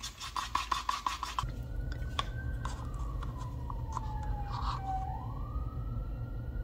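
Bamboo stick stirring acrylic paint and pouring medium in a paper cup: a quick run of scrapes for about the first second and a half, then only a few scattered taps. Behind it, a faint wailing tone slowly falls and then rises again.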